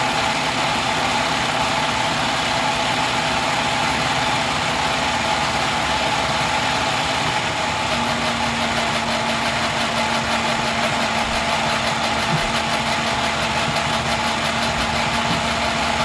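Steady engine-like running noise with a constant hum, unbroken throughout; a second, lower steady tone joins about halfway through.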